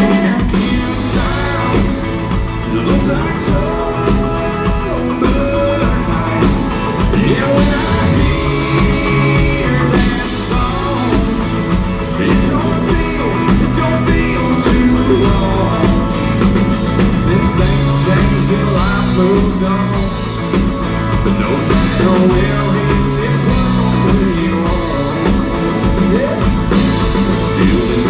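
Live country-rock band playing, with electric guitars and a drum kit, recorded from the audience in the hall.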